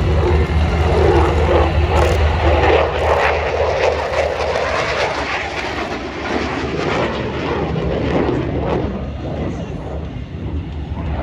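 Jet aircraft flying past and climbing away, a loud steady engine noise that grows fainter in the last few seconds.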